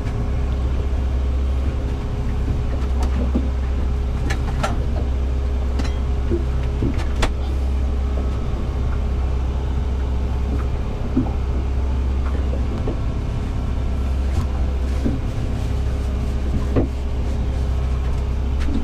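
A generator running with a steady low drone, with a few light clicks and knocks over it.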